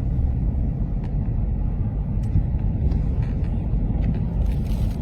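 A steady, loud low rumble in an outdoor recording, with a few faint clicks and a short hiss near the end.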